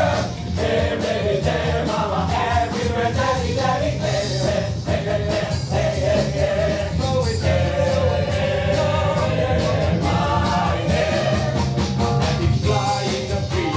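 A group of voices singing together in a rock-musical number, with band accompaniment.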